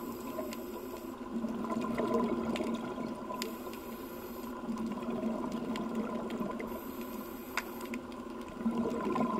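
Scuba regulator breathing underwater: a thin hiss on each inhale alternating with a gurgling rush of exhaust bubbles on each exhale, about one breath every three seconds.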